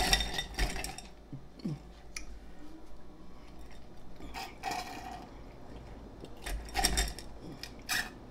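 Straw scraping and churning through crushed ice in a stemmed glass as a slushy frozen drink is stirred and sipped, in several short gritty bursts with pauses between.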